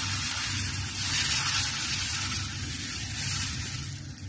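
Semolina pancake batter sizzling as it is spooned onto a hot non-stick frying pan and spread out, a steady hiss that eases a little near the end.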